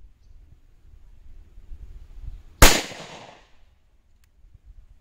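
A single pistol shot from an FN Five-seveN Mk II firing 5.7x28mm, about two and a half seconds in: a sharp crack that rings out and dies away over about a second.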